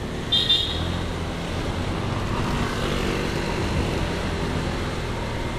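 Motorcycle running along a city street, a steady low rumble with road and traffic noise. A short high beep sounds about half a second in.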